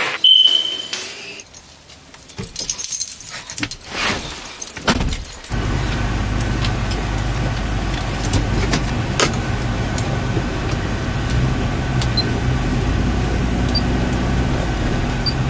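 A short beep and clatter near the start, then keys jangling and clicking. From about five and a half seconds in, a Ford vehicle's engine runs steadily at idle, heard from inside the cab.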